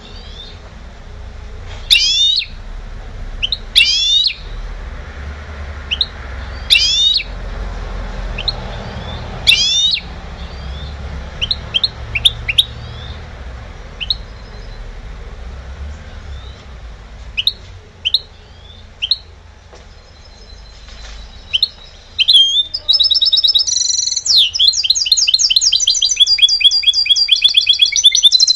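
Caged goldfinch × canary hybrid (mixto de jilguero), song-trained, giving spaced sweeping call notes every couple of seconds, then bursting into loud, continuous fast-trilled song about 22 seconds in.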